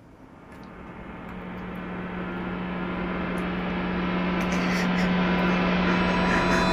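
An edited suspense riser sound effect: a hissing swell over a steady low hum. It grows steadily louder for about seven seconds, then cuts off suddenly.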